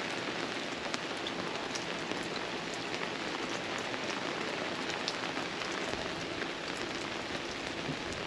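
Steady rain falling, with scattered individual drops ticking sharply throughout.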